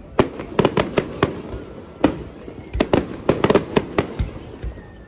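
Aerial fireworks going off in rapid volleys of sharp bangs and crackles, thickest in a dense cluster about three seconds in, then easing off near the end.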